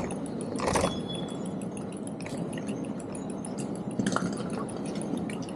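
Train station ambience: a steady background wash of people and movement, with scattered light clinks and ticks and two sharper knocks, one under a second in and one about four seconds in.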